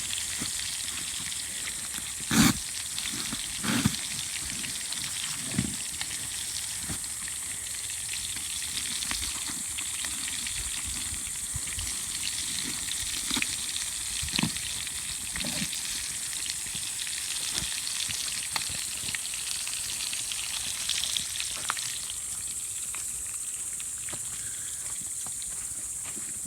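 Pike frying in a pan over a campfire: a steady sizzle, with a few short knocks or pops, the loudest about two and a half seconds in.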